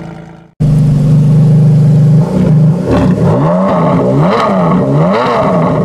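Ferrari Enzo's naturally aspirated V12, fitted with an exhaust bypass valve, holding a steady note for about a second and a half, then revved up and down several times in quick blips. The engine note fades and breaks off briefly just before this.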